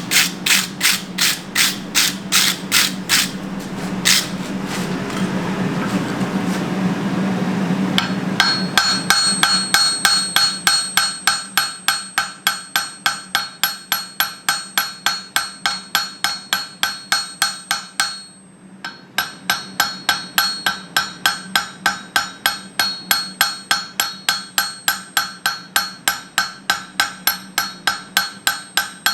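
Blacksmith's hammer striking hot steel on an anvil, each blow ringing: a quick flurry of blows, a lone blow, then a long, even run of hammering at about three blows a second with a short pause midway, setting down a shoulder on the bar.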